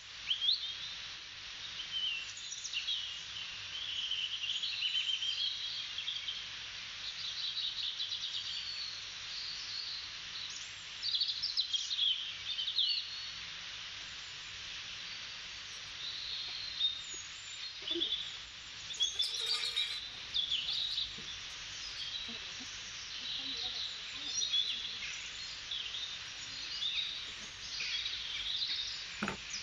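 Recorded birdsong nature track: many small birds chirping in quick, overlapping calls over a steady background hiss.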